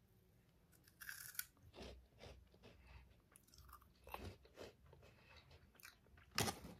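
Quiet chewing of a soft puffed snack, with irregular short mouth sounds; a louder bite or smack about a second in and again near the end.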